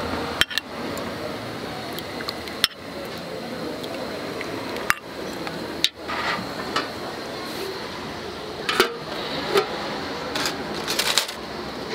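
Scattered clinks and knocks of a ladle, ceramic bowls and metal spoons against a large aluminium soup pot and its lid, over steady background noise.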